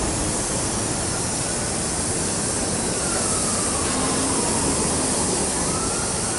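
Empty Norfolk Southern coal hopper cars rolling slowly past as the train creeps toward a stop, with a steady hiss and rumble. A faint high tone slides down about three seconds in.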